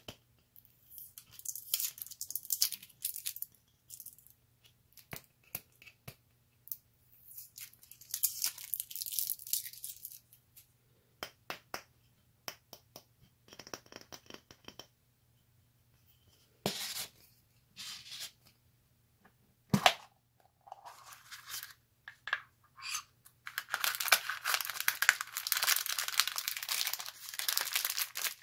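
Handling noise as a satin ribbon is untied from a red tin ball: bursts of high rustling and scattered light clicks, with a sharp click a little before the last third, when the tin's two metal halves come apart. Near the end a plastic candy wrapper crinkles loudly and continuously.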